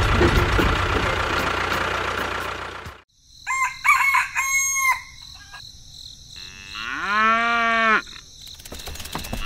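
A steady machine-like noise that fades and cuts off about three seconds in, followed by a chicken clucking several times and then a rooster crowing once, a long call of about a second and a half.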